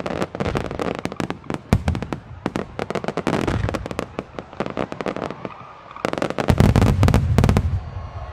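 Fireworks finale: aerial shells and salutes bursting in rapid, dense sharp reports and crackling. A run of heavy, low booms comes near the end.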